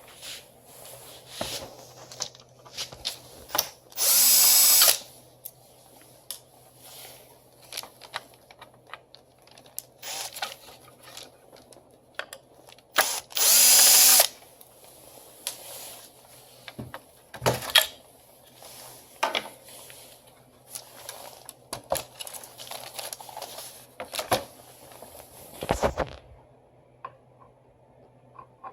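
Handheld power screwdriver running in two short bursts of about a second each, roughly nine seconds apart, as a copier fuser unit is dismantled, with scattered clicks and knocks of parts being handled between them.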